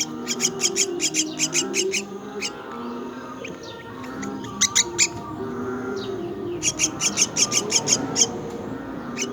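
Myna chicks giving rapid, repeated high begging calls in two runs of about six calls a second, with a shorter burst between them.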